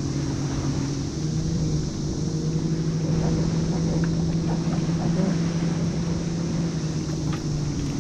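Motorboat engine droning steadily on the lake, rising slightly in pitch about two seconds in and settling back near the end.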